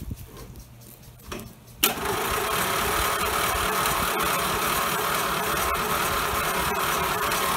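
1990 Murray lawn tractor's Briggs & Stratton opposed-twin engine firing up abruptly about two seconds in, then running steadily. It is just coming to life after new spark plugs, a new air filter and a cleaned carburettor.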